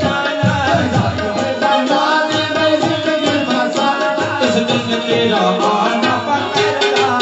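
Qawwali music: a voice singing with long held notes over hand drums keeping a steady beat.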